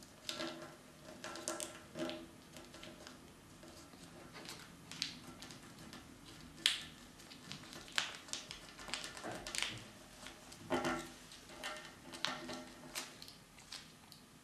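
A strip of paper being folded, creased and rolled by hand: irregular crinkles, rustles and small taps at uneven intervals.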